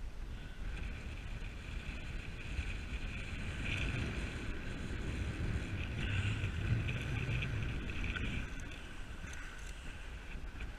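Strong wind buffeting the microphone over the steady wash of rough surf on the rocks, swelling about six to eight seconds in.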